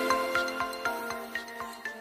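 Background music: quick bright notes about four a second over held lower tones, fading out toward the end.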